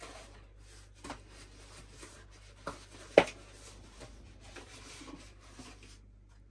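Cardboard clamshell burger box being handled and opened: faint rubbing and scraping of the card, with a few sharp taps, the loudest about three seconds in.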